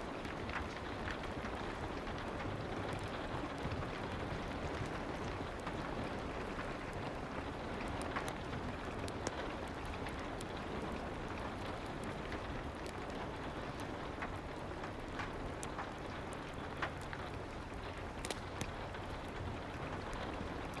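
Steady soft rain ambience with scattered sharp crackles of a wood fire in a fireplace, a few louder pops among them.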